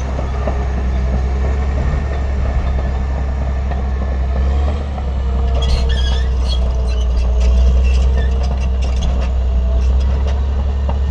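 Heavy construction machinery engine running steadily with a deep low hum; from about six seconds in, scattered clicks and clanks join it.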